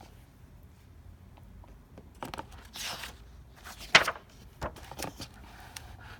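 Paper rustling with a few sharp taps and clicks, a picture book's page being turned and handled; the loudest click comes about four seconds in.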